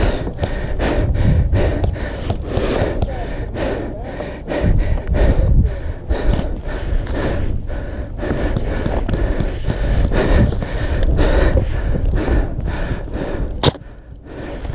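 A player breathing hard while running, with quick footfalls and rumbling movement noise close to the body-worn microphone. There is one sharp click near the end.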